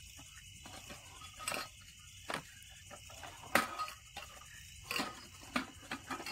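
Night chorus of crickets, a steady high trill. Six short, sharp knocks and clicks are scattered over it, the loudest about halfway through.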